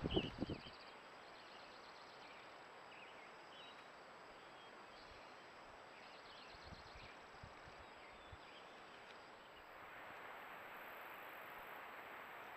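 Faint meadow ambience over a steady hiss, with insect trills and short high chirps. In the first second come a few heavy low thuds as a black bear walks up close through the grass. About ten seconds in, the hiss gets louder and steadier.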